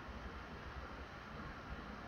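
Quiet room tone: a faint steady hiss with a low hum and no distinct sounds.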